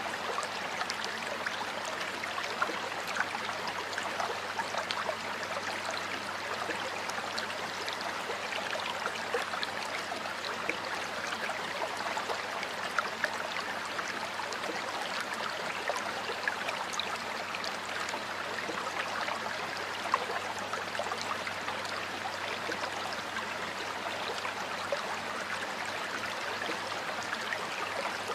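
Stream water flowing steadily over rocks, a continuous babbling rush with many small splashes and droplets.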